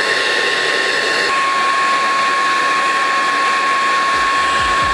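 Handheld hair dryer running steadily, a constant whine over a rush of air, blowing hot air onto vinyl wrap to soften it onto the rifle.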